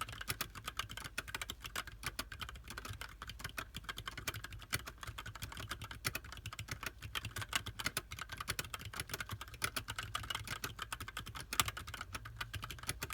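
Steady, fast typing on a TADA68 mechanical keyboard with Gateron Yellow linear switches and JTK keycaps: a dense run of key clacks, with one louder keystroke a little before the end.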